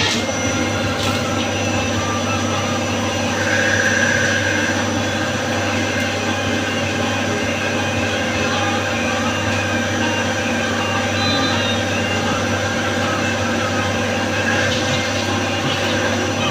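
Wintec TC15 CNC lathe running steadily, with a constant hum and a thin high whine over it.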